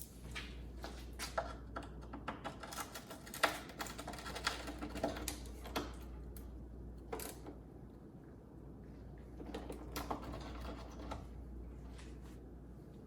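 Irregular light clicks and knocks of hand tools working on metal under a car, as a heat shield's fasteners are undone, busiest in the first half and again briefly near the end.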